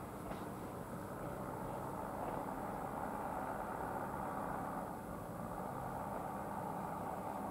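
Classic electric warning bell of an AŽD 71 level-crossing signal ringing steadily, warning that a train is approaching.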